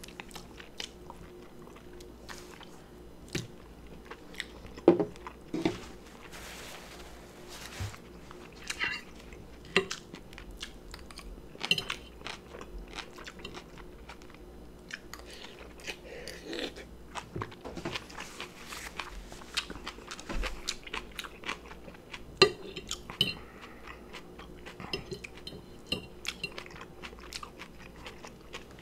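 A person eating lollipop chicken with kimchi: biting, chewing and crunching, with scattered sharp clicks. The loudest clicks come about five seconds in and near the twenty-two-second mark.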